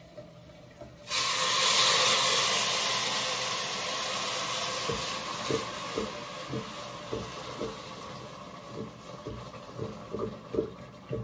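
Kitchen tap turned on about a second in, water running into a stainless steel pot with a steady hiss that slowly eases. Light, irregular knocks from the pot sound under the water through the second half.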